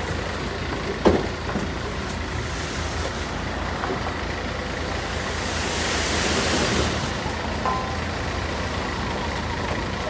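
Diesel engine of heavy earthmoving machinery running steadily, with a sharp knock about a second in and a swell of hissing noise around six seconds in.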